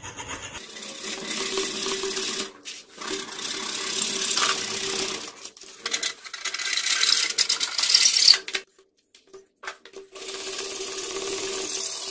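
Hacksaw cutting through a thin wooden strip with rasping back-and-forth strokes, in four spells with short pauses between them.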